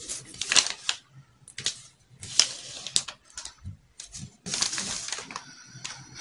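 Pattern paper rustling and crackling under the hands in irregular bursts as a tape measure is walked around the drawn armhole curve to check its length.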